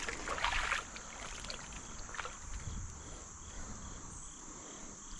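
Insects chirping steadily in the background, with water disturbed briefly in the first second as a small hooked redeye bass is brought in, and a few faint clicks.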